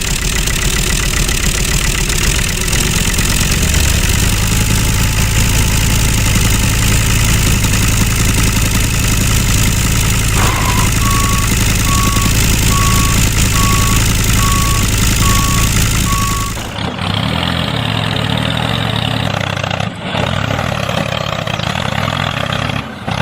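A truck engine running steadily. About halfway through, a reversing alarm beeps about seven times at an even pace. The engine sound then changes abruptly to a different, rougher running.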